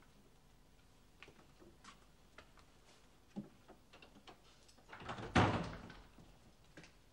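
A door being opened, with a few light clicks and knocks, then shut with a thud about five seconds in.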